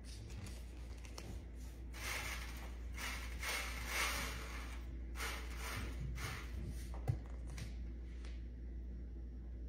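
Salt poured from a canister onto a block of ice: a soft granular hiss in several bursts over a few seconds, then a light knock.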